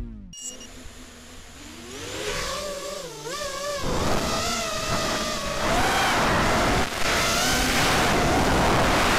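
Racing quadcopter's brushless motors (Cobra 2204 2300 kV with 4-inch tri-blade props) whining, their pitch wavering up and down with the throttle. The sound gets louder from about four seconds in, with a rush of wind over the onboard camera's microphone.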